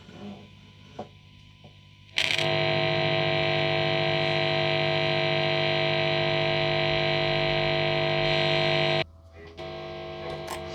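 SX Stratocaster played through a distorted amplifier: after a faint hum and a few small clicks, a note or chord starts with a sharp attack about two seconds in and rings loud and steady for about seven seconds, then is cut off. A quieter steady buzz remains, the single-coil hum that the tech takes for the normal sound of a Strat rather than a fault.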